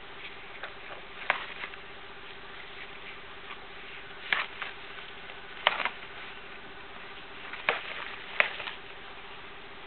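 Young tortoises' shells knocking together during courtship, as one pushes and climbs onto the other. There are five sharp clicks, roughly one to two seconds apart, each followed by a fainter click or two.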